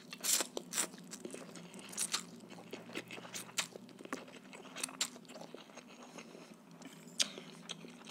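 A man slurping and chewing rice noodles close to a microphone: wet mouth smacks and clicks come at irregular intervals.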